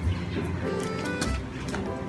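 Background music with steady held notes and light percussive strikes.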